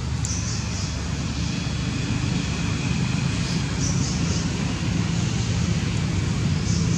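Steady low engine drone of nearby motor traffic, with a few short high hissy sounds every couple of seconds.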